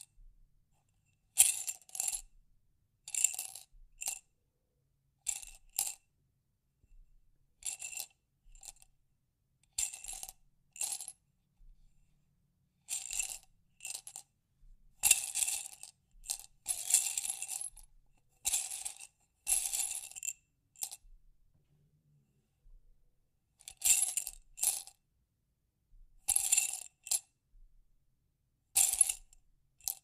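Small hard objects rattling and clinking inside a glass jar, in short bursts every second or two.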